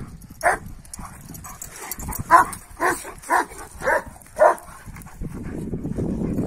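Kangal shepherd dogs play-fighting: one dog lets out a run of short barks, five in quick succession about every half-second in the middle, with low growling before and after.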